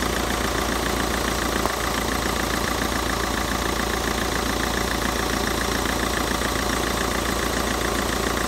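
Peugeot 2.0 HDi diesel engine idling steadily with a fast, even clatter, the AC compressor engaged and the condenser fan off.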